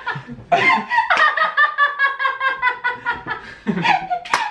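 People laughing hard, led by a woman's high-pitched, rapid laugh in long runs that slowly fall in pitch. A sharp click near the end.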